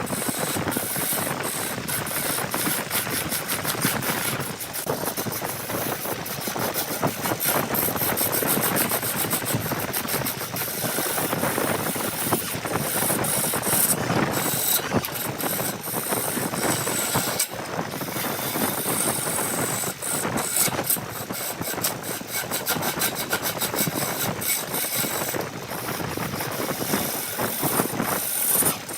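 Powered saw cutting into wood: steady machine noise with a dense, rapid crackle.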